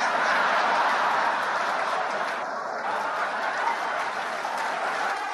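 A stand-up comedy audience laughing and applauding after a punchline. The noise swells up at the start and eases off slightly toward the end.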